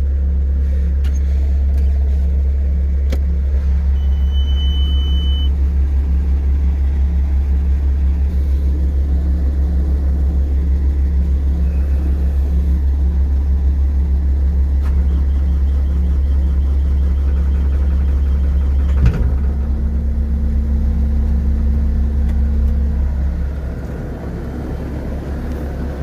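Diesel skid steer engine running steadily with a deep drone, with a short high beep about four seconds in; near the end the engine note drops and gets quieter.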